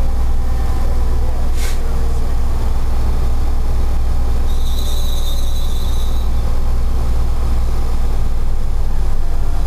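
Steady low rumble of a fire truck's engine and road noise inside the cab as it rolls slowly along. A steady high-pitched squeal comes in about halfway through and lasts about a second and a half.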